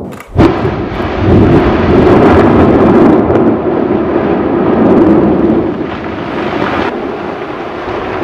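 Volcanic eruption: a sudden blast about half a second in, then a loud, dense rumble that slowly dies down toward the end.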